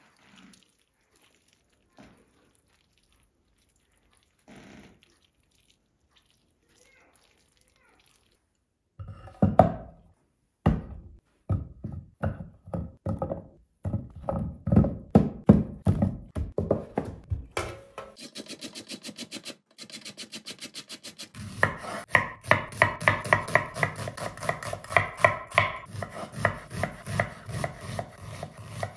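Faint knocks at first. From about nine seconds in, heavy knocks and chops as raw pumpkin is cut and handled on a wooden board. From about eighteen seconds in, raw pumpkin is rubbed down a metal box grater in quick rhythmic scraping strokes, louder from about twenty-two seconds.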